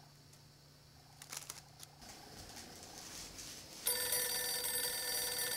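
Beige desk telephone ringing, starting suddenly about two-thirds of the way in with a steady, bright ring.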